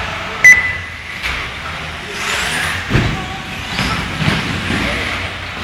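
Electric 1/10-scale off-road RC buggies running on the track, with the whine of their motors rising and falling. About half a second in there is a sharp click followed by a short steady beep.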